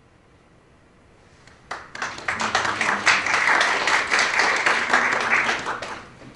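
Small audience applauding, beginning about two seconds in after a brief quiet and dying away near the end.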